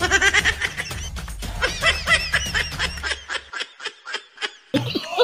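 Music mixed with quick, repeated laughter, a comedy sound effect laid over the clip. A low hum underneath stops about two-thirds of the way through.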